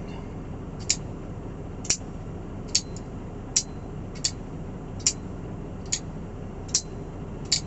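Buck Marksman pocketknife being flicked open and shut over and over, its lock snapping with a sharp click about once a second, about ten in all.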